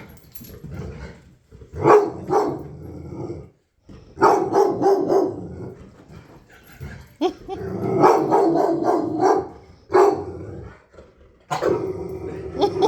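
A dog barking in repeated bouts, alarmed at a large stuffed toy tiger.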